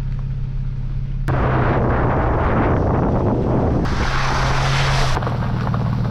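Vehicle driving on a gravel logging road: a steady engine hum, with a loud rough rumble of tyres on gravel that comes in suddenly about a second in.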